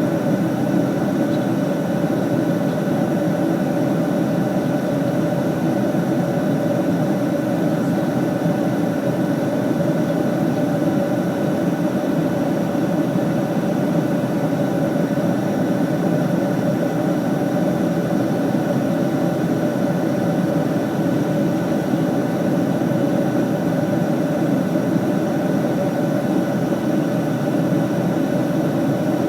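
Steady airliner cabin noise in flight: engine drone and rushing airflow with a constant hum, unchanging throughout.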